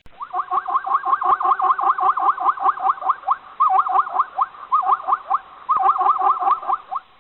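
An animal giving a fast run of short, pitched calls, about five or six a second, each bending up and down in pitch, broken by a few short pauses.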